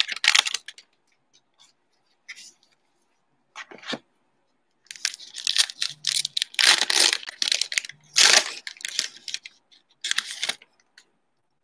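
Plastic trading-card pack wrapper being torn and crinkled in a series of short, irregular bursts, with quiet gaps between them.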